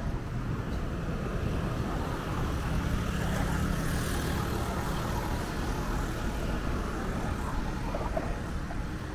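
Road traffic noise: motor vehicles running with a steady low rumble, swelling a little around three to four seconds in.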